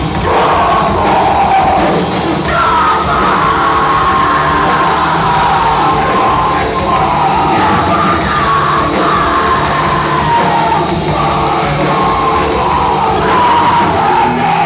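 Live heavy rock band playing loud and distorted: electric guitars, bass and drums, with yelled vocals over them. The song stops suddenly at the end.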